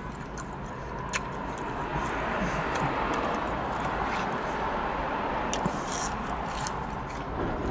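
Chewing and biting into crispy breaded chicken fries, with a few short crunchy clicks, over a steady background rush.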